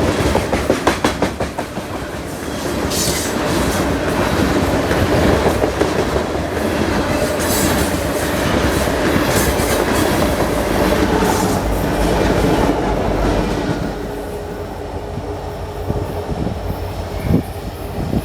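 Canadian National freight train rolling past, its car wheels clicking rhythmically over rail joints over a steady rumble. The sound eases off about fourteen seconds in.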